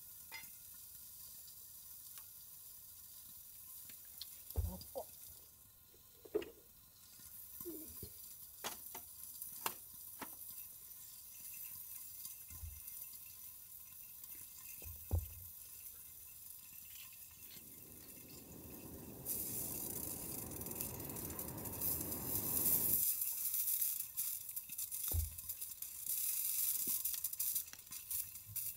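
Meat sizzling on a thick iron griddle under its lid over a wood fire, a steady hiss that grows louder about two-thirds of the way in. Scattered small clicks and knocks, and a few seconds of rustling noise just past the middle.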